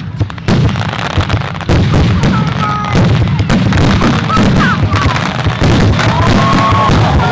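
Fireworks display going off: a rapid run of bangs and crackles, one after another throughout.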